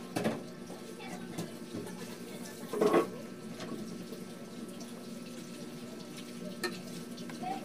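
Close-up eating sounds of a person chewing noodles: wet chewing and small smacks and clicks, with one louder wet mouth sound about three seconds in, over a steady low background hum.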